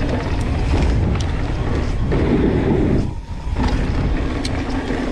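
Mountain bike riding noise: heavy wind rumble on the microphone mixed with tyres rolling over dirt, briefly dropping away about three seconds in.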